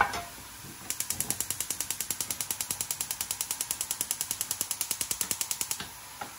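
Gas hob's spark igniter clicking rapidly, about ten clicks a second for about five seconds, as a burner is lit. A pan knocks down onto the hob at the very start.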